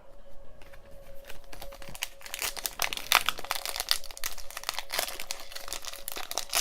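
Plastic trading-card pack wrapper crinkling as it is torn open and handled, a dense irregular crackle that grows busier about two seconds in.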